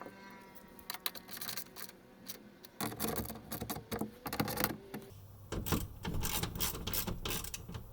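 Irregular clicks, knocks and rattles of plastic and metal as a car's plastic engine undertray is worked back into place by its tabs, growing busier and louder about three seconds in.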